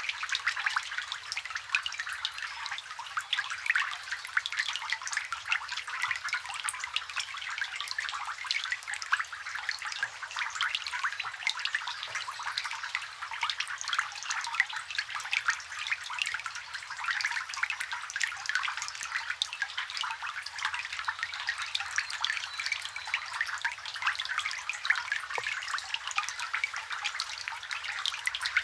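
Rain falling on a water surface, recorded close: a dense, steady patter of small drops plinking and splashing.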